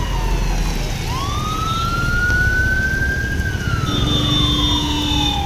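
An emergency vehicle's siren in a slow wail, its pitch falling, rising over about two seconds and falling again, over a steady low background rumble. A second steady tone sounds briefly about four seconds in.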